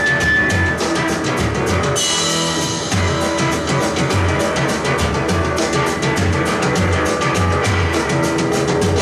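Rock drum kit played hard in a driving groove: fast, even cymbal strokes over kick and snare, with a cymbal crash about two seconds in. Bass and guitar play beneath the drums.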